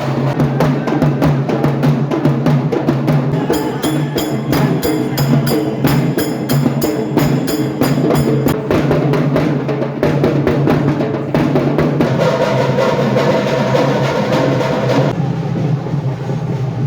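Loud Bonalu festival drumming: a drum band beating rapid, unbroken strokes over a steady low hum. A higher ringing layer joins for about five seconds near the start.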